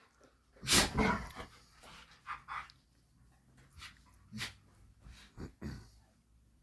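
Two pet dogs play-fighting: a loud short huff just under a second in, then several quieter short huffs and snuffles.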